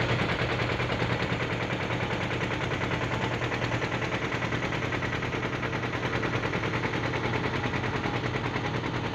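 Motorboat engine running steadily under way, a fast even chugging over a low hum.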